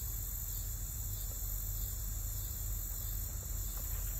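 A steady, high-pitched insect chorus over a low, steady rumble.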